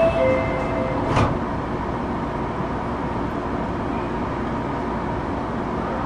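Inside an Osaka Metro 31 series subway car: a two-note chime alternates and stops about a second in, followed by a single thud, then the steady background noise of the car.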